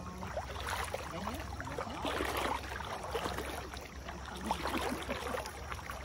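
Water splashing and sloshing in uneven bursts as a nylon cast net is hauled up by hand out of shallow river water.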